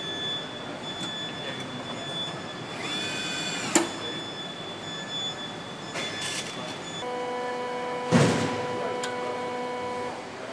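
Car assembly-line factory noise: a steady machine hum with thin electronic tones. A short whirr ends in a sharp click about four seconds in, and there is a thump about eight seconds in.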